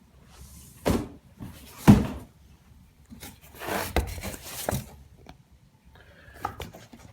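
Unboxing handling of a shipping box and packed guitar case: several knocks and thuds, the loudest about two seconds in, with a stretch of rustling packaging in the middle.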